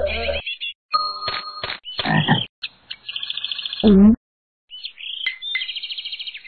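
Cartoon sound effects of frogs croaking, with short low croaks about every two seconds over a high, buzzing chirp that keeps stopping and starting. The clips are separated by moments of dead silence.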